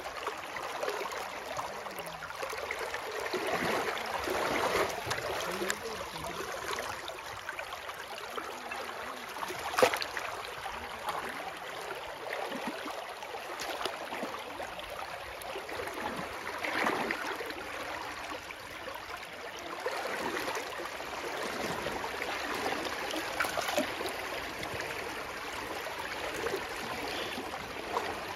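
Shallow pond water splashing and sloshing as a bamboo polo fish trap is pushed into the water and hands rummage inside it, feeling for fish. A single sharp knock about ten seconds in.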